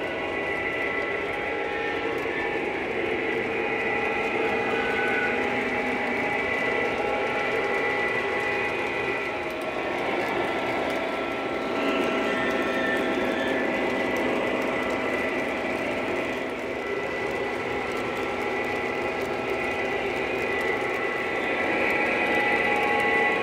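Lionel O-gauge model trains running on the layout: a steady mechanical whirring and rumbling of electric motors, gears and metal wheels on the track.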